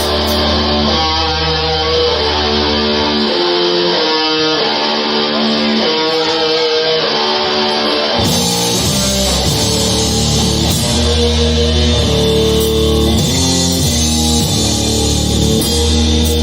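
Rock band playing live: an electric guitar riff, with the rest of the band and cymbals coming in about halfway.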